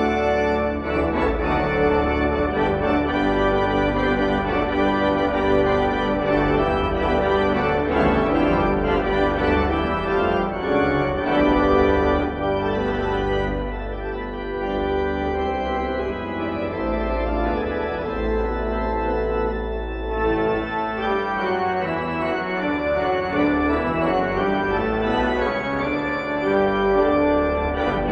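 Organ music: sustained chords over a deep bass, the notes changing every few seconds and the playing dipping a little in volume in the middle.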